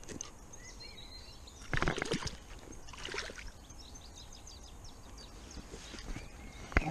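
Rustling and a few knocks from hands handling a freshly caught perch, loudest about two seconds in, with faint bird chirps in the background.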